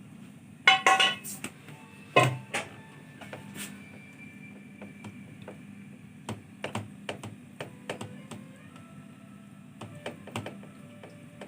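Metal spoon clinking and knocking against cookware as cooked macaroni is spooned into a baking tray: a few loud ringing knocks early, then many light taps and clicks.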